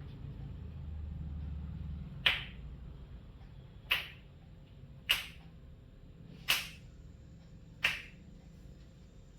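Knuckles cracking five times, a sharp pop every second or so.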